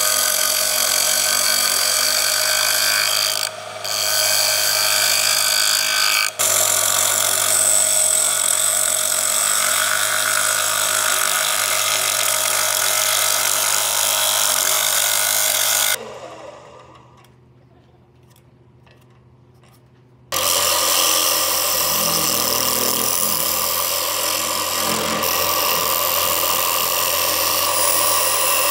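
Gouge cutting the face of a spinning Korean zelkova plate on a wood lathe: a steady, loud hissing scrape with a ringing whine. It breaks off for about four seconds past the middle, leaving only a faint low hum, then resumes.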